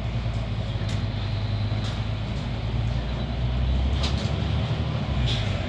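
Mercedes-Benz Citaro articulated city bus running as it drives along, heard from inside the front of the passenger cabin: a steady low engine hum with a few light rattles.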